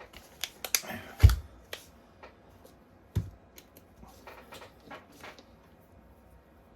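Handling noise from working on the battery pack: a run of small clicks and taps, with a dull thump about a second in and another about three seconds in.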